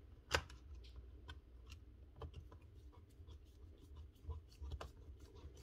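Faint scratching and small clicks of a screwdriver turning a screw into a cordless angle grinder's gear-head housing, with one sharper click about a third of a second in.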